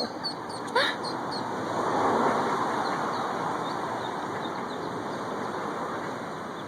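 Ducklings peeping in many short, high chirps, under a broad rushing noise that swells about two seconds in and slowly fades.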